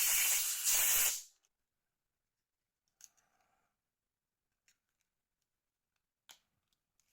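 Two short, loud blasts of hissing spray, about a second in all, then a few faint small clicks of phone parts being handled.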